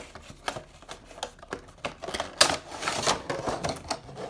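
A cardboard Funko Pop box and its clear plastic blister tray being handled and slid apart as the box is opened: a run of light clicks, taps and plastic crinkles, busiest about two to three seconds in.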